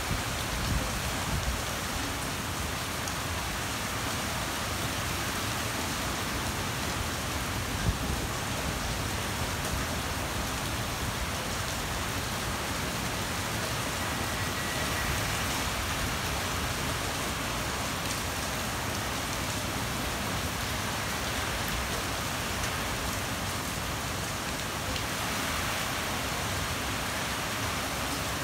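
Typhoon rain and wind beating down steadily, with a few short knocks just after the start and a louder one about eight seconds in.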